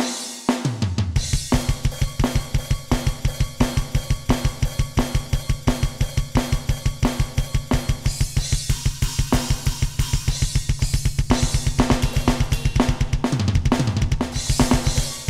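Electronic drum kit triggering custom sampled drum sounds in a metal groove: a fast, even double-bass kick run under steady snare hits and cymbals. Quick fills down the toms, falling in pitch, come just after the start and again near the end.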